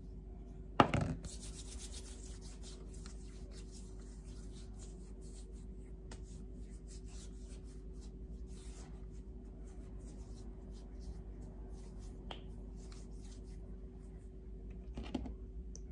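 Hands rubbing hand cream into the skin: soft, irregular skin-on-skin strokes that thin out after about nine seconds, with a few small clicks. One loud, sharp sound comes about a second in, as the cream is squeezed from the tube.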